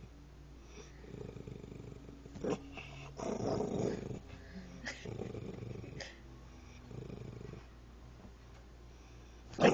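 Cocker spaniel growling with a bone in her mouth, in rough low bouts of a second or so with short pauses, a growl that sounds like a motorcycle engine. A single sharp, loud click near the end.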